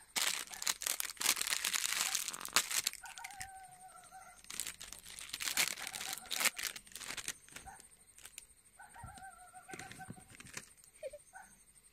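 A foil snack packet crinkling as it is handled and pulled open, in two spells of dense crackling. Twice in between, an animal gives a drawn-out wavering call in the background.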